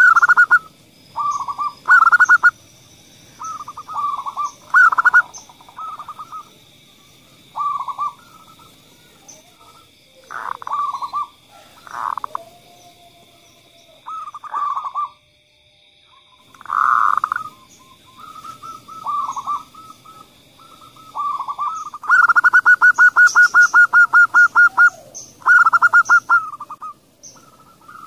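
Zebra doves (perkutut) cooing in repeated short phrases with pauses between them. Near the end comes a fast run of even notes lasting about three seconds.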